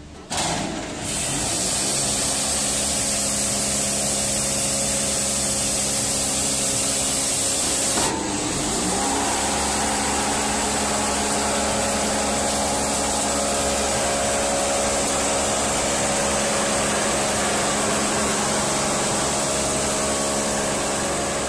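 Hammer-mill crusher grinding feed grain to powder. It is a loud, steady whir over the hum of its electric motor, cutting in abruptly at the start, with a brief change in the sound about eight seconds in.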